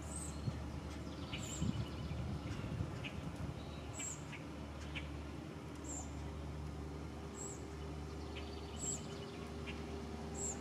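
Songbird giving short, high, thin chirps every second or two, over a steady low hum.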